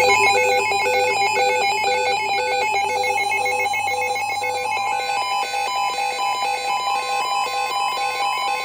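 Emergency alert tones: several electronic tones beeping together in overlapping, rapidly repeating patterns, like a ringing alarm. A low pulsing tone drops out a little under four seconds in, and a steady high tone holds through the second half.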